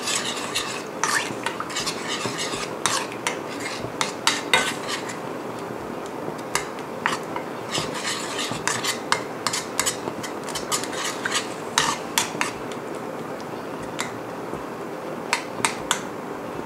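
Metal spoon stirring a gochujang sauce in a stainless steel frying pan, with irregular clinks and scrapes against the pan as the sauce heats toward a boil.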